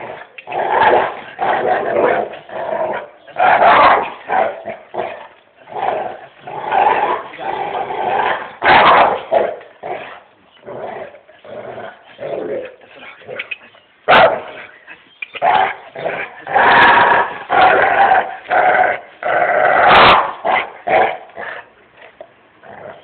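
A dog growling and barking in irregular bursts, with a few sharper, louder barks.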